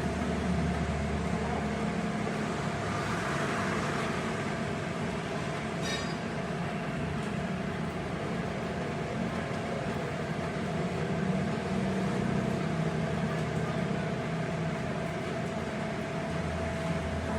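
A workshop machine running steadily, with a constant whine over an even mechanical noise and low hum; a short click about six seconds in.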